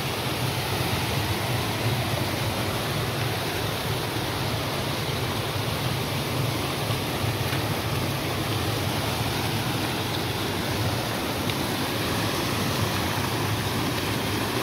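Steady rushing of a 240-foot waterfall, heard from near its top edge.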